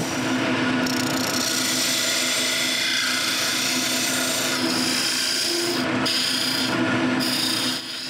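Wood lathe running while a turning tool cuts into a spinning maple blank: a steady hiss of shavings coming off over the lathe's hum. The cutting stops near the end.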